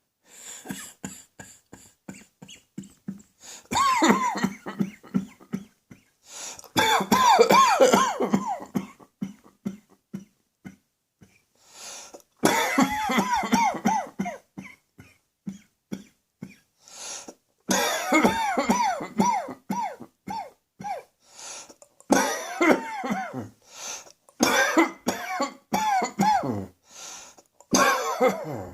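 A person coughing in repeated fits: about seven bouts of several quick coughs in a row, with short pauses between bouts.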